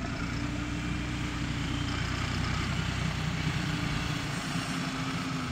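Farm tractor engine running steadily, a low, even rumble.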